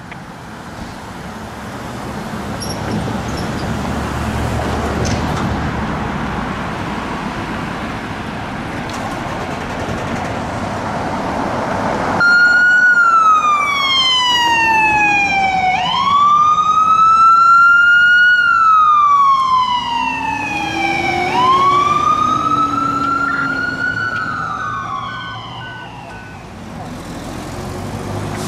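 Vehicle engine and road noise, then about twelve seconds in an emergency vehicle's electronic siren starts suddenly and wails, sweeping slowly down and back up in pitch twice before fading out near the end.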